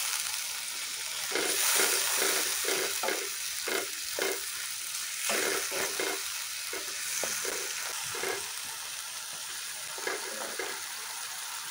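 Chicken pieces in coriander-leaf paste sizzling in oil in a nonstick kadai, while a wooden spatula scrapes and stirs them in quick, irregular strokes.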